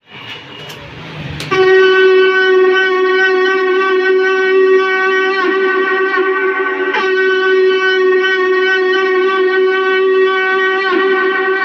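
Electric aarti machine sounding its shankh (conch-shell) call: one long, steady horn-like tone that comes in abruptly about a second and a half in, after a couple of clicks, with a few brief dips in pitch.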